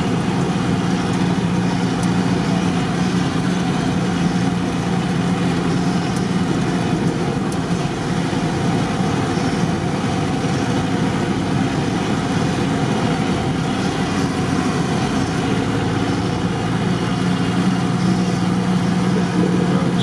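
A UAZ off-roader's engine running steadily while the vehicle drives slowly over packed snow, a constant hum with tyre and road noise.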